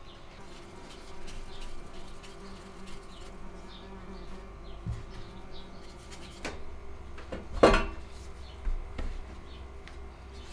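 An insect buzzing steadily, with a few sharp knocks in the second half, the loudest about three quarters of the way through.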